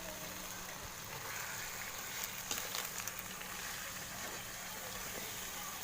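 Food sizzling steadily in a hot cooking pan, with a few light clicks a little past the middle.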